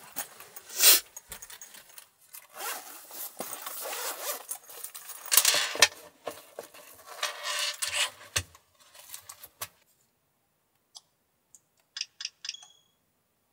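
Zipper of a soft carrying case being pulled open, with scraping, rustling and handling noise as a Nintendo Switch is taken out, and a thump about a second in. A few small plastic clicks near the end.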